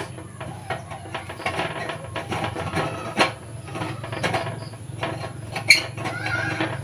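Steel pipe of a used-oil stove being handled and fitted to the stove's metal frame: scattered light metal clicks and knocks, a sharper knock about three seconds in, over a steady low hum.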